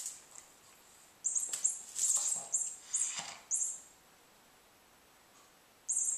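A cat toy giving short, high-pitched mouse-like squeaks in a quick run of bursts. They stop for about two seconds, then start again near the end.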